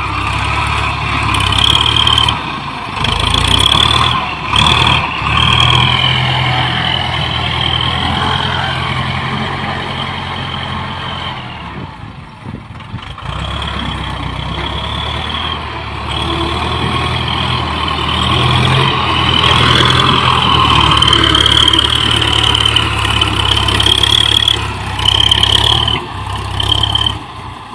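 Ford 6610 tractor's four-cylinder diesel engine running steadily under load while pulling an implement through dry, hard soil, with a high wavering tone above the engine. The engine drops away briefly about halfway through, then comes back.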